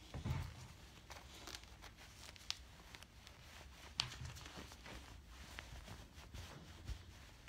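Faint rustling of a stretchy knit denim jacket being pulled and handled close to a phone's microphone, with a few short clicks of handling noise.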